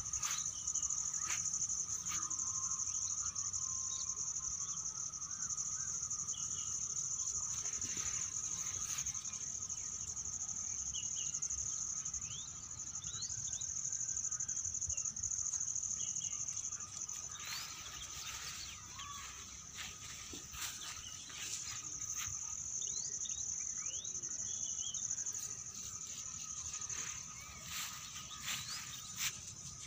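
A steady, high-pitched insect chorus, with short bird chirps scattered through it and occasional rustles and knocks.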